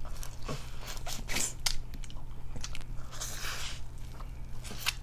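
Close-up eating sounds from a buttery seafood boil: wet smacks, bites and chewing clicks at irregular intervals, with a short crackly stretch about three seconds in. A low steady hum runs underneath.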